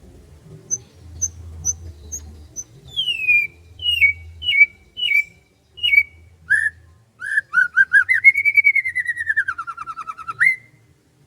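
A songbird singing. A few short high chips about twice a second give way to five clear whistles, each sliding downward, then to lower notes. The song ends in a long, rapidly trilled phrase that falls slowly and then sweeps up sharply before it stops.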